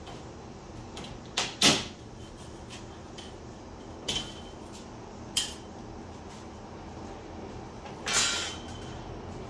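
Metal body trim being pried off a 1969 Chevrolet Impala: several separate sharp snaps and clacks as the trim and its clips let go, the loudest a double snap about a second and a half in, with a longer clatter near the end.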